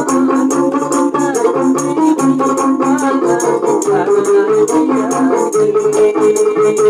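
Gambus wedding music: a fast, even shaker rattle over pulsing bass notes and a plucked-string melody that bends up and down in pitch.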